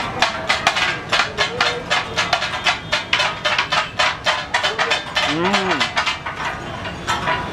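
Rapid clanking of metal spatulas chopping and mashing takatak on a hot plate, several sharp strikes a second. About five seconds in, a drawn-out voice rises and falls briefly.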